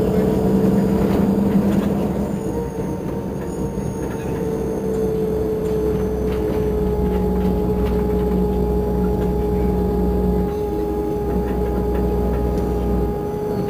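Irisbus Crossway bus idling steadily while stopped, a low engine hum with a steady whine over it.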